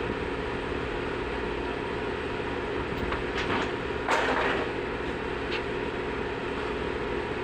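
Workshop ambience: a steady mechanical hum from running machinery, with a few sharp metallic clicks and a louder clatter of metal parts being handled about four seconds in.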